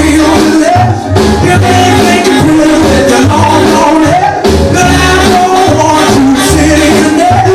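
Recorded vintage rock-and-roll style music playing, with a steady pulsing bass line under melody lines.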